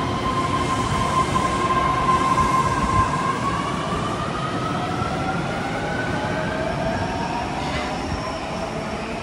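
Osaka Metro 30000A-series electric subway train pulling out of the station. Its motor whine holds one pitch, then from about three seconds in rises steadily as the train picks up speed, over the rumble of the wheels on the rails.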